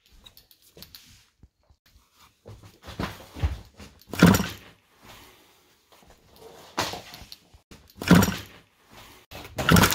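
Small motorcycle engine being kick-started, about five kicks, each spinning it over in a short burst of noise that dies away without the engine catching.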